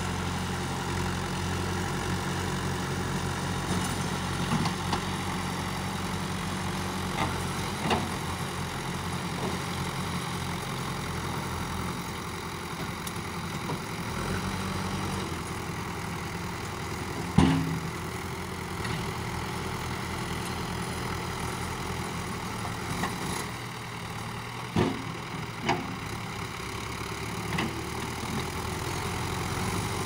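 Diesel engines of a Swaraj tractor and a JCB backhoe loader running steadily, the tractor under heavy load pulling a sand-laden trolley through soft sand. Several short sharp knocks sound over the engines, the loudest about seventeen seconds in.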